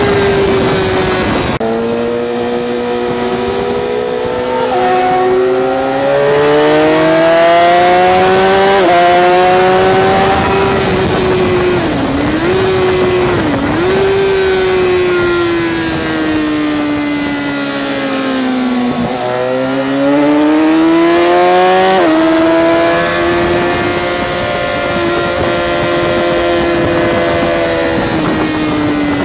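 Sport motorcycle engine heard from onboard at track speed: the pitch climbs and drops back at three quick upshifts, dips briefly twice in the middle, falls for several seconds as the bike slows, then climbs again through another upshift and holds fairly steady.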